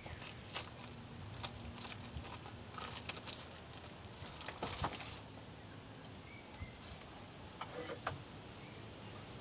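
Plastic packaging being handled: crinkling and rustling on and off for about five seconds, then a few sharp clicks and rustles near the end.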